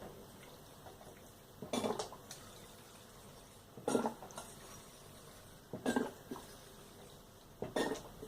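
Coolant being poured into a water-cooling loop's reservoir in four short spurts about two seconds apart, each a brief splash or gurgle.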